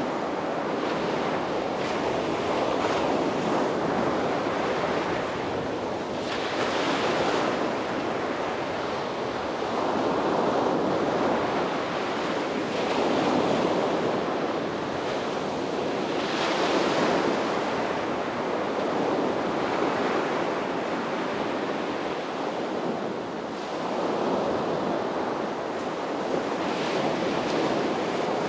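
Sea waves breaking and washing up on a beach, a steady surf rush that swells and eases every few seconds, with a brighter hissing wash about every ten seconds. Some wind noise on the microphone.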